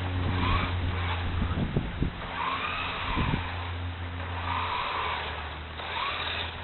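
Radio-controlled car's motor whining, its pitch rising and falling several times as the throttle is worked while it slides on ice, over a steady low hum, with a few short knocks.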